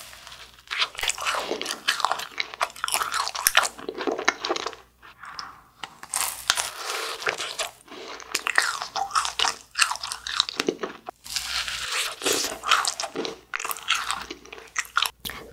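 Bites and chewing of a large macaron, its crisp shell crunching in repeated bursts with a couple of short pauses.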